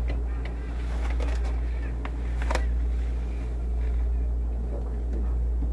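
Steady low rumble of background noise, with a few faint clicks and faint murmuring voices.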